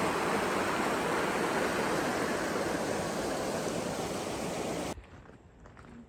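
Water rushing over a stone dam's weir in white rapids, a steady rush that cuts off suddenly about five seconds in, leaving a much quieter outdoor background.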